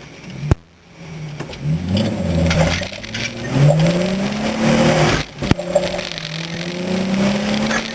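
Nissan Z33's V6 engine accelerating hard, its pitch rising, dropping briefly just after 5 s, then rising again. A sharp click about half a second in and another at the dip, with a steady hiss underneath.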